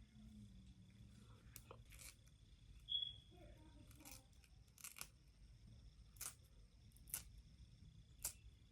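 Scissors snipping through wig lace, a series of faint, irregularly spaced snips as the lace is cut into sections.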